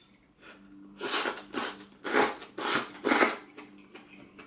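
Five short puffs of breath about half a second apart, blowing on hot hot-pot watercress held up on chopsticks to cool it.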